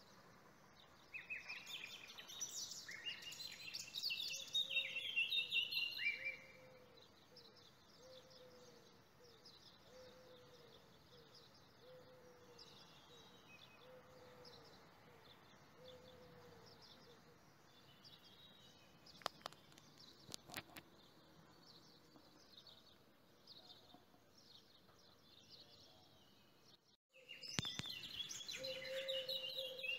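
Small birds chirping and singing, busiest and loudest in the first few seconds and again near the end, with a lower call repeating about every second and a half in between. The sound drops out briefly just before the end, then the chirping resumes.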